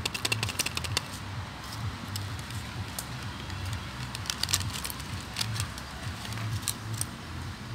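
Crinkling and sharp crackling clicks of a plastic instant-coffee stick sachet, handled close to the microphone as it is shaken out into a glass and crumpled, over a low rumble. The clicks are thickest in the first second.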